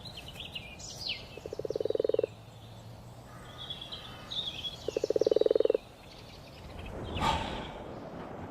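Frog calls: two pulsed croaking trills about a second each, with birds chirping high above them. A short burst of noise sounds near the end.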